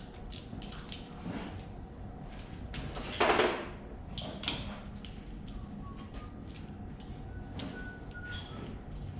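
Hand tools and metal engine parts clicking, knocking and scraping as parts are unbolted from a Ford 302 V8, with a louder scrape or clatter of about half a second a little over three seconds in.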